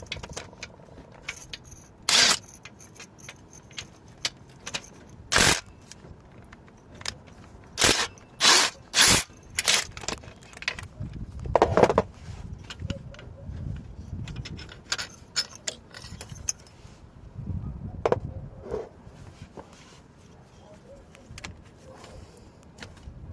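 Metal hand tools at work on the car's starter bolts: short, sharp metallic rattles and clanks, about six loud ones in the first ten seconds, with quieter clicks and scraping between.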